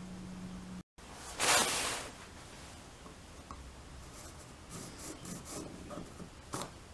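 Wooden workpieces handled on a workbench: one short, loud rubbing scrape about a second and a half in, followed by scattered light taps and knocks.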